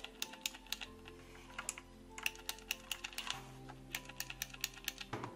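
Keys of a Motospeed CK104 mechanical keyboard with Outemu blue switches being pressed in a quick, irregular run of sharp clicks, the loud typewriter-like clicking typical of blue switches.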